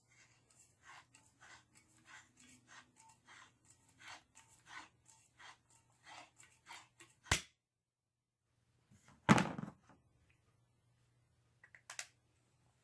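Hard objects being handled: a run of faint small clicks and taps, a sharp click about seven seconds in, a louder thud about two seconds later, and two quick clicks near the end.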